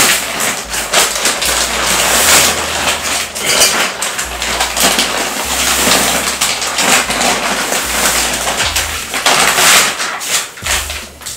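Clear plastic wrapping on a mattress crinkling and crackling loudly as the wrapped mattress is lifted and turned, with irregular crackles throughout that ease off near the end.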